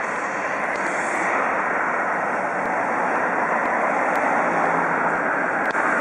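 Steady roar of road traffic on a multi-lane road, growing slowly louder.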